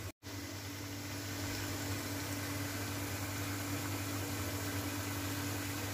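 Beef pieces sizzling and bubbling in a karahi, in hot oil and the juices the meat has released, heard as a steady hiss over a steady low hum.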